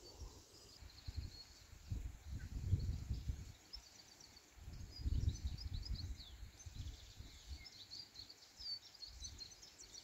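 Small birds chirping and singing in the background. Low muffled rumbles on the microphone come twice, about two seconds in and again about five seconds in, and these are the loudest sounds.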